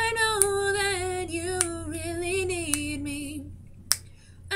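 A woman singing unaccompanied, holding one long note that wavers and drifts slowly down in pitch before stopping about three and a half seconds in for a breath. A sharp click sounds about once a second, with a faint steady low hum underneath.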